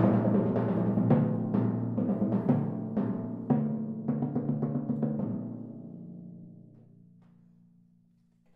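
Timpani struck with felt mallets in a run of strokes on several pitched drums, slowing and stopping about five seconds in; the drums are then left ringing and fading away to near silence.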